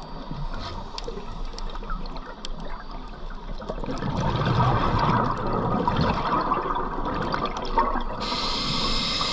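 Scuba diver's breathing through a regulator, heard underwater: a long spell of exhaled bubbles, loudest from about four to eight seconds in, then the hiss of an inhalation through the regulator starting near the end.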